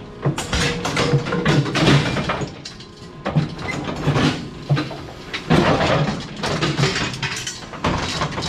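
Irregular clattering and knocking, many sharp strokes in quick succession, from a metal cattle hoof-trimming chute being worked as a cow moves in or out of it.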